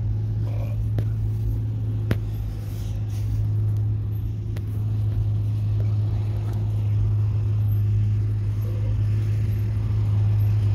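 A steady low rumble or hum, with a few faint clicks about one, two and four and a half seconds in.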